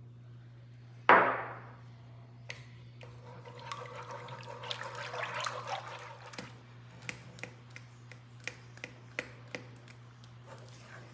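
A sharp clack about a second in, the loudest sound, then a wire whisk beating egg yolks into a milk, condensed-milk and cornstarch custard mixture in a nonstick pan with a busy scraping and sloshing. After that comes slower stirring with scattered light clicks, over a steady low hum.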